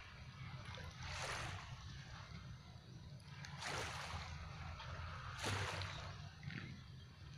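Harbour water washing against the pier and moored boats, three soft swashes over a steady low rumble.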